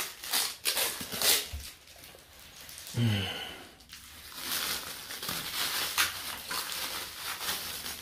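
Plastic stretch wrap crinkling and rustling in irregular crackles as it is torn off a steel cooking pan.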